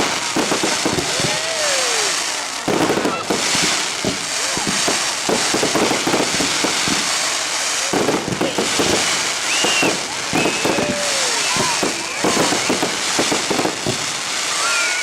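Fireworks crackling and banging in a dense, unbroken volley of rapid bursts, with crowd voices underneath.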